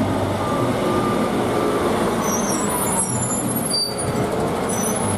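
Cement mixer truck's engine running steadily with a low hum, stopping abruptly at the end.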